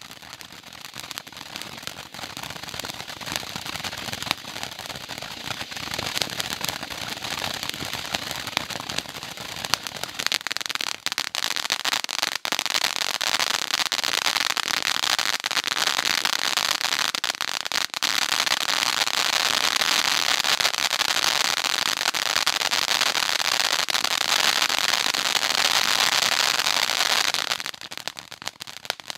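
Fireworks crackling: a dense, continuous rush of tiny pops that builds up over the first half, holds steady and loud, then cuts off suddenly near the end.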